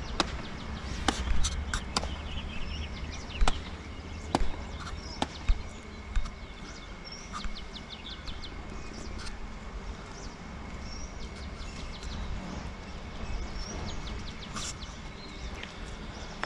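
Open-air ambience over a river: a low wind rumble on the microphone, short high bird chirps now and then, and a faint steady high tone. In the first six seconds there are several sharp knocks and clicks, which are the loudest sounds.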